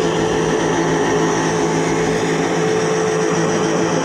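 Steady engine-like drone from an RC burnout car, holding one even pitch without revving.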